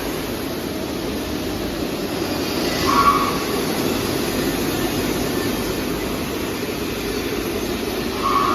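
Industrial conveyor parts washer running, a steady machine noise. A short high squeal comes about three seconds in and again near the end.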